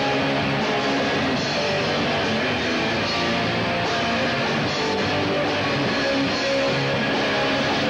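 Live rock band playing loudly and without a break, electric guitar to the fore over a drum kit.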